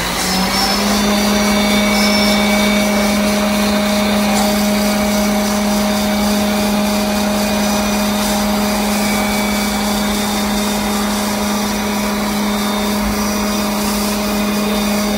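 MACHT MSSF 1.5-50 servo self-feed drilling spindle unit running at speed, a steady hum over mechanical noise, its pitch having just risen as the spindle came up to speed at the start. The quill feeds forward as it runs.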